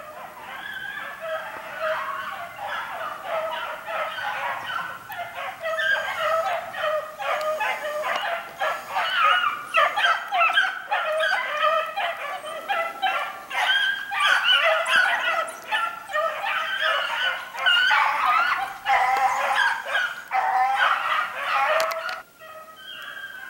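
A pack of hounds baying on a hare's scent track, many voices overlapping and growing louder; the chorus cuts off suddenly near the end.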